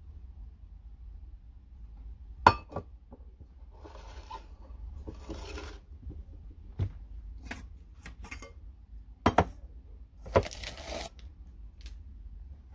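Lamacom stainless steel Turkish coffee pots being handled and set down on a table: a series of sharp metal knocks and clinks, the loudest about two and a half seconds in and a close pair near nine seconds, with brief rubbing and scraping noises in between.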